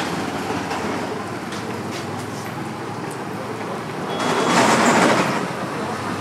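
Street traffic noise: a steady mix of vehicles, with one passing more loudly about four seconds in.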